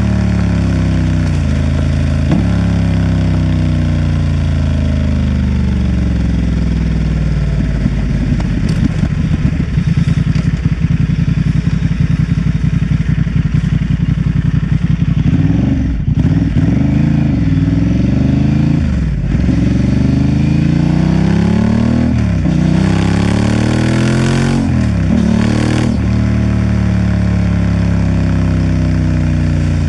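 Honda Transalp XL750's parallel-twin engine running under changing throttle, its pitch climbing and dropping again and again as the rider accelerates, shifts and backs off. A fast rattle runs under it for several seconds in the middle, and short gusts of wind noise come through near the end.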